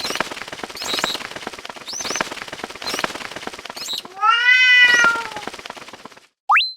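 Cartoon level-crossing warning sound effects: a noisy alarm pattern repeating about once a second, then a long pitched cry that rises and falls about four seconds in. After a brief silence, a short rising whoop comes just before the end.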